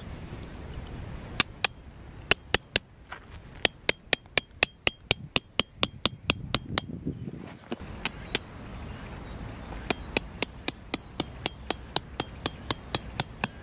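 Peg hammer driving a metal tent peg into gravelly ground: sharp, ringing metal-on-metal strikes, about three or four a second, in two runs with a short pause about seven seconds in.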